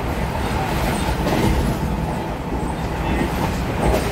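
Passenger train running along the track, heard from inside the carriage: a steady rumble with a few clacks of the wheels over rail joints.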